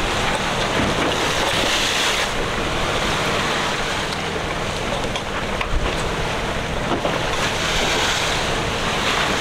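Wind and sea rushing past a sailing catamaran under way in rough water, with wind buffeting the microphone.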